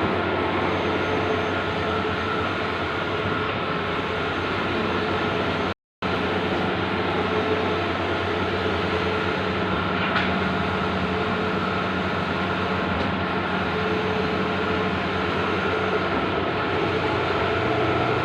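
Bluewin large-format outdoor digital printer running: a steady mechanical whir with an even hum, cut off to silence for a moment about six seconds in.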